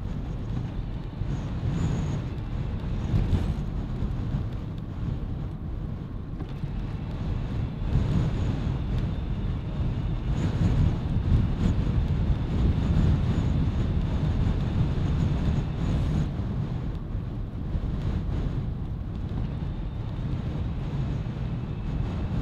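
Steady low rumble of wind buffeting a fur-covered handlebar microphone, mixed with bike tyres rolling on tarmac while riding. The noise swells and eases with gusts.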